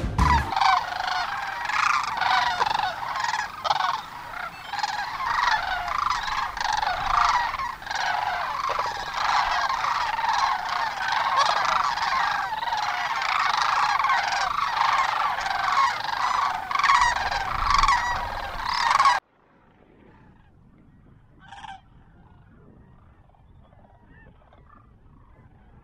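A large flock of sandhill cranes calling, many rolling, rattling bugles overlapping into a continuous chorus. It stops suddenly about three-quarters of the way through, leaving a faint call or two over quiet background.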